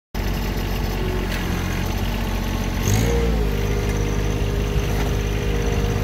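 John Deere 1023E compact tractor's three-cylinder diesel engine running steadily. About three seconds in its speed rises and then holds at the higher pitch.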